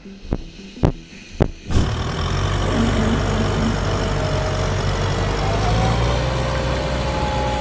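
A few sharp knocks, then from about two seconds in a truck's engine running steadily at an even level.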